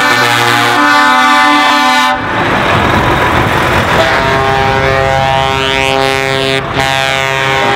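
Truck air horns sounding in long held blasts as trucks drive past. One blast lasts until about two seconds in, followed by a rush of passing-truck noise, and a second long horn blast starts about four seconds in.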